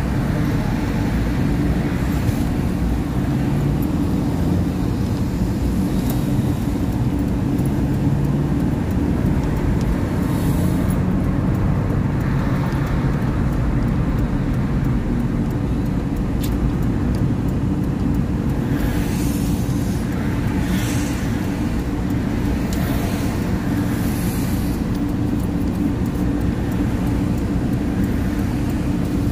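Car driving on a highway: a steady low rumble of engine and tyres on the road. Several brief whooshes of passing traffic come in the second half.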